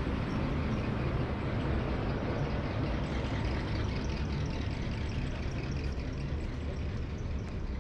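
Steady rumble of road traffic, with no single vehicle standing out.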